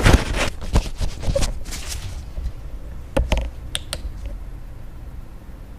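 Handling noise from a camera being moved and set down close to its microphone: a quick run of knocks and rustles, then a few separate sharp clicks about three to four seconds in.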